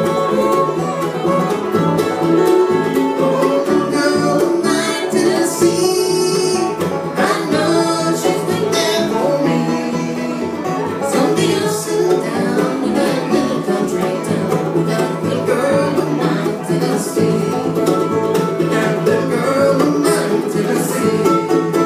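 Live bluegrass band playing: banjo, acoustic guitar, mandolin, upright bass and fiddle, with voices singing. The fiddle is bowed at the start, then drops out while the fiddler sings.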